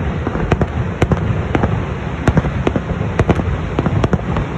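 Fireworks going off in quick, irregular succession, about three to four sharp bangs a second, over a steady wash of noise.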